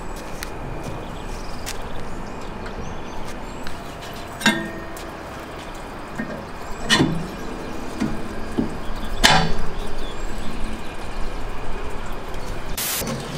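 Three sharp metallic clanks a couple of seconds apart, each with a short ringing, as the steel lid and chimney cap of a barrel grill-smoker are handled. Softer knocks and steady background noise fill the gaps.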